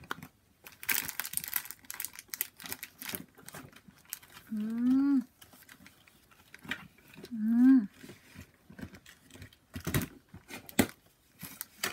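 Powder puff rubbing and patting on a pressed-powder compact and on the face: a quick run of soft brushing and tapping noises, mostly in the first few seconds. Two short hummed 'mm' sounds rising in pitch come in the middle, and two sharp clicks near the end.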